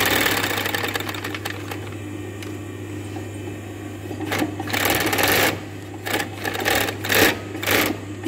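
Kansai Special multi-needle waistband sewing machine stitching denim through a newly fitted waistband folder, as a test run of the folder setup. It runs steadily for about four seconds, then in several short runs, over the steady hum of its motor.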